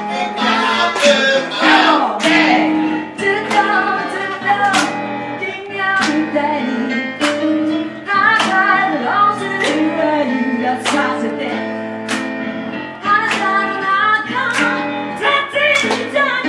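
Live soul song: a woman singing into a microphone over electric keyboard accompaniment, with a sharp percussive hit on a steady beat about every 1.2 seconds.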